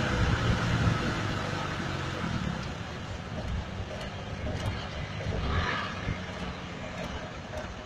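4x4 engine running at low revs, louder at first and easing off after a second or two.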